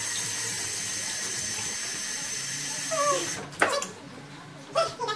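Kitchen tap running into a stainless steel sink, shut off sharply about three and a half seconds in. Just before it stops comes a short high-pitched whine, and a few clunks at the sink follow, the loudest just after the water stops.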